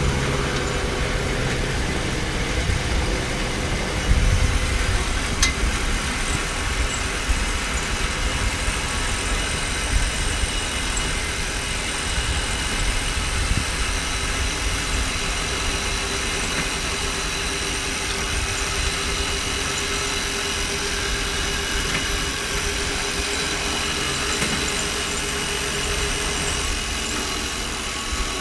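Home-built motorized rail trolley running along old rusty rails. Its wheels make a steady low rumble on the track, with a steady whine over it and occasional light knocks.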